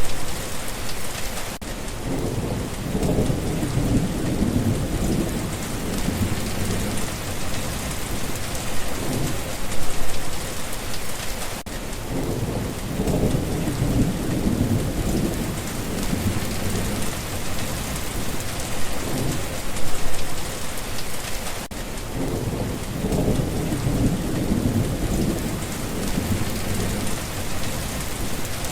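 Steady rain falling, with low rolls of thunder rumbling up about every ten seconds.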